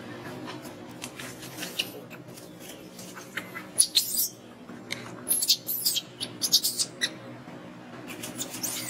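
Infant macaque squeaking in short, very high-pitched bursts with curling pitch: one about four seconds in, a rapid run between about five and seven seconds, and more near the end.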